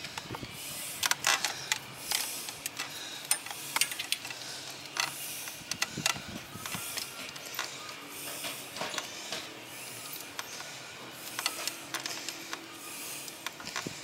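Irregular clicks and scrapes of small metal parts being handled: a new brake light switch with copper crush washers being fitted back into the motorcycle's rear brake line by hand.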